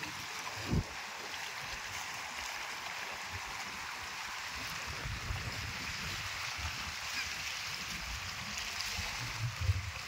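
Wind-driven waves lapping and splashing against a rocky reservoir shore, a steady rush of water. Gusts of wind buffet the microphone with low rumbles, briefly loud about a second in and again near the end.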